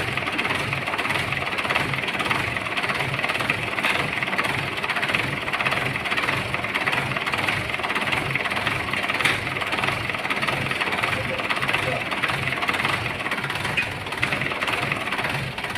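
An engine or motor running steadily with a regular low throb, mixed with general workshop noise.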